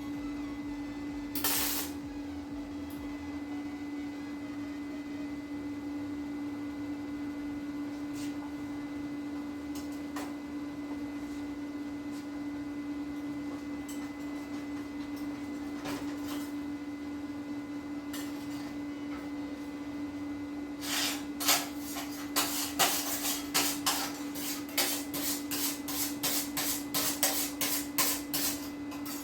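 A steady hum with a single click near the start. About twenty seconds in, a Prime Weld MIG 180 flux-core welding arc starts crackling in short, irregular spurts as it welds thin 22-gauge sheet metal.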